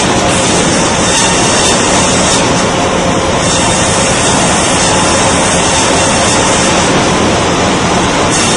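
Industrial band saw cutting lengthwise through a log as it is fed past the blade, together with the mill's feed machinery: a loud, steady mechanical din. The highest part of the noise grows and fades several times.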